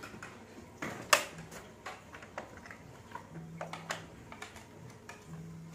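Scattered clicks and light knocks of plastic toy food and a clear plastic food box being handled and packed, the loudest a little over a second in.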